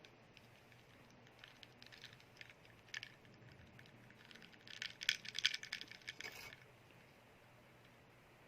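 Chewing a cheese stick: scattered crackly clicks, then a denser run of crunching about four and a half seconds in that dies away two seconds later.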